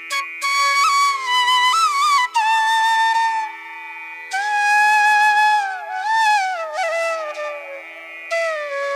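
Background music: a bamboo flute playing a slow, bending melody in phrases over a steady drone, in Indian classical style.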